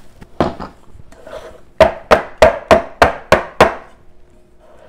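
Muffin tin full of batter tapped sharply against the countertop to settle the batter. There is a single knock about half a second in, then a quick run of seven hard knocks, about three or four a second.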